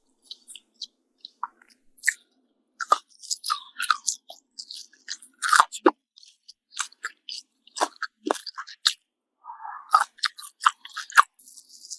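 Crispy fried bacon being bitten and chewed, with a run of irregular sharp crunches and crackles.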